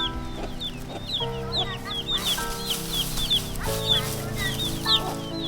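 Chicks peeping constantly, many short high cheeps overlapping several times a second, over background music with held notes.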